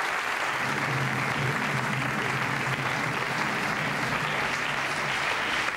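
Studio audience applauding steadily. A low steady tone runs underneath from about half a second in until near the end.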